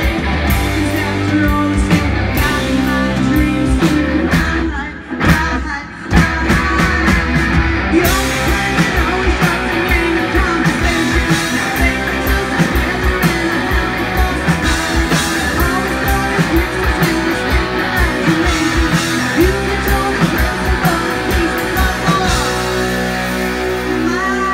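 Live rock band playing: electric guitars, bass and drums with a woman singing. About five seconds in the band briefly drops out and comes back in with a hit; near the end the playing gives way to a steady held drone.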